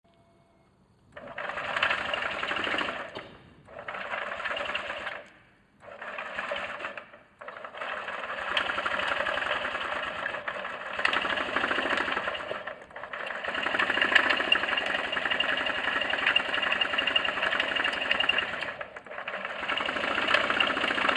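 Honda Zoomer 49cc four-stroke scooter engine making a fast mechanical clatter in bursts: three short ones, then longer runs with brief breaks. It is the strange engine noise that came before the scooter failed to run.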